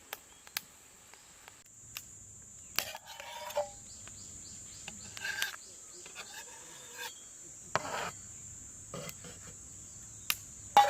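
Crickets chirping in a steady high trill, with scattered short clicks and crackles.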